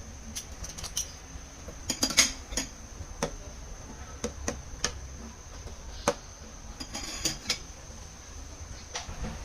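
Irregular clinks and knocks of kitchen utensils against dishes or pots, several close together about two seconds in and again around seven seconds.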